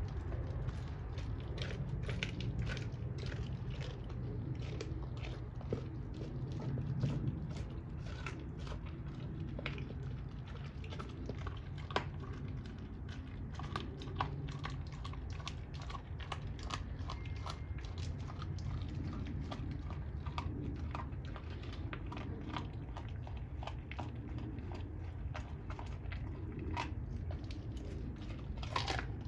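Doberman chewing and gnawing a raw pork bone with meat on it, with many sharp clicks and cracks of teeth on bone, over a steady low hum.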